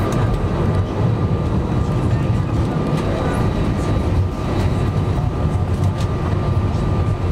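Airbus A320 cabin noise during a single-engine taxi, with only engine number 1 running: a steady low rumble with a constant thin whine above it.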